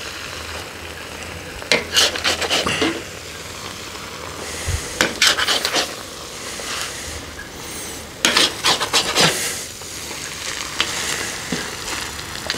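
Cooked plov of rice, carrots and lamb being stirred and turned over in a kazan, a utensil scraping through the rice and against the pot wall in three bursts of quick strokes, with a steady low hiss between them.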